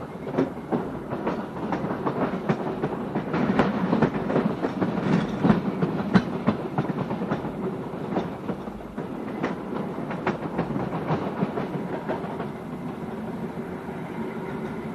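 A train running on the rails, its wheels clattering over the rail joints with many irregular clicks and knocks. From about nine seconds in, the clatter eases into a steadier, quieter rumble.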